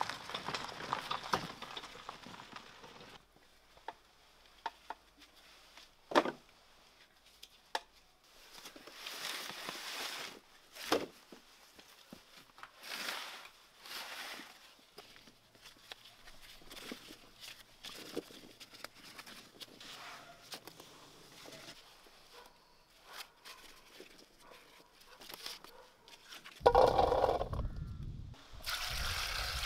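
Hooves of a horse-drawn cart on a dirt road for the first few seconds, then single hard knocks of potatoes dropped into wooden crates. Near the end, the loudest sound: a rumbling rush as a basket of potatoes is tipped into an enamel bowl.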